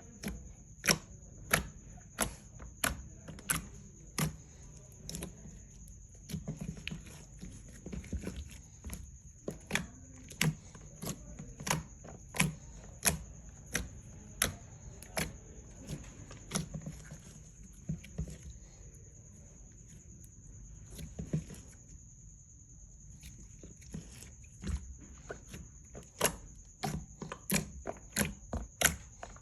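Glossy clear slime being kneaded and pressed by hand, giving a run of sharp pops and clicks about one or two a second, thinning out in the middle and picking up again near the end. A steady faint high whine sits under it.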